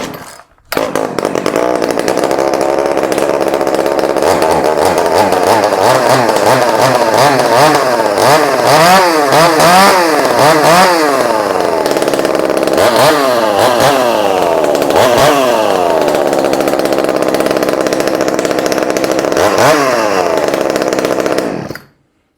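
Poulan Wild Thing two-stroke chainsaw running loud, starting up about a second in and revved repeatedly, its pitch rising and falling in quick swells, before it cuts off near the end.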